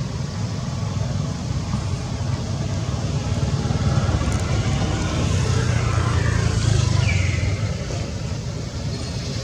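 Steady low rumble of a running motor vehicle engine, with a brief high squeal falling in pitch about seven seconds in.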